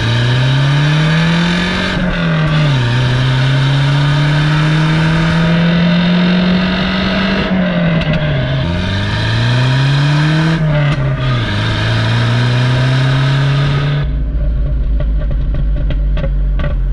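Audi 80 B4's 2.0-litre, 90 hp four-cylinder engine heard at the tailpipe of what is said to be a factory Audi sport exhaust, accelerating through the gears with a burbling note. The pitch climbs and drops back at each shift, about two, eight and eleven seconds in, then holds level. Near the end it falls away to a low rumble.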